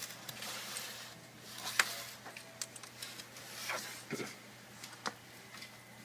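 Prying tool working along a laptop's case seams: light scraping with scattered small clicks, and one sharp click just under two seconds in.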